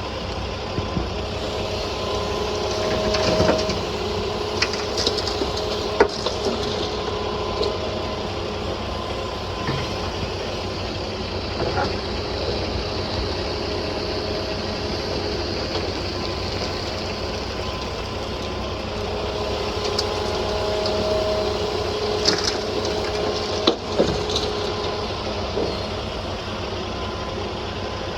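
John Deere 210G LC excavator working: its diesel engine runs steadily with a whine that swells twice under load, over scattered sharp knocks and clanks of the bucket and gravel.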